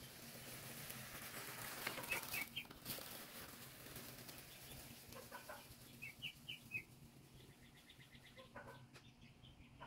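Walk-behind broadcast spreader pushed across grass, its wheels and spinning plate rattling as it throws fertilizer granules, loudest about two seconds in and fading soon after. Birds chirp briefly a few times.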